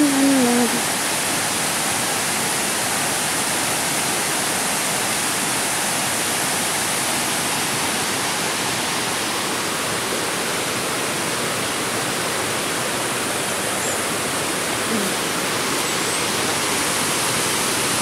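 Waterfall rushing steadily as white water cascades over wide, low rock steps into a pool.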